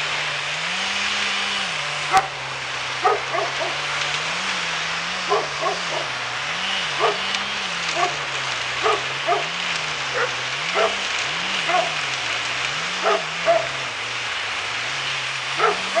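Wood chipper running with a steady roar of noise. Its engine pitch rises and falls over and over as it takes load. Short, sharp sounds come at irregular intervals throughout.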